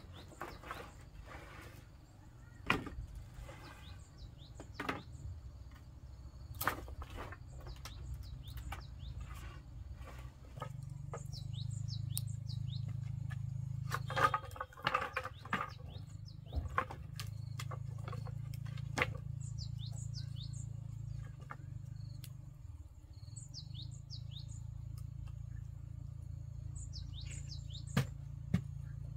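Wooden poles clattering and knocking against each other as they are picked up, sorted and stacked, in scattered knocks with a busy rattle about halfway through. Birds chirp throughout, over a low steady hum that starts about a third of the way in.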